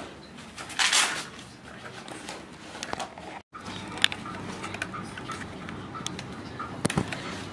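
Handling noises from a fibre-optic patch cord and an optical power meter: a short rustle about a second in, then sharp clicks at about four and seven seconds as the cord's connector is fitted into the meter.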